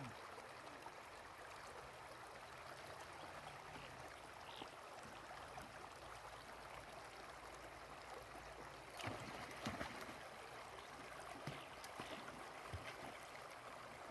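Faint, steady rush of a shallow river running over stones, with a few short splashes about nine to ten seconds in and a couple more near the end as a beagle wades through the water.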